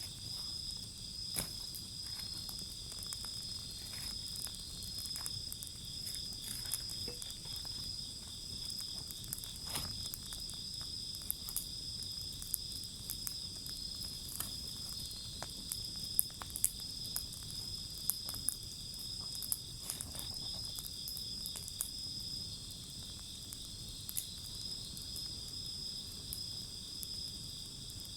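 Wood fire crackling, with scattered sharp pops, several louder ones in the middle, over a steady chorus of insects trilling.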